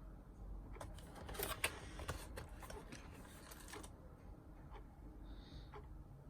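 Handling noise from small plastic objects: a run of sharp clicks and rustling starting about a second in and lasting a few seconds, with one louder click near the middle.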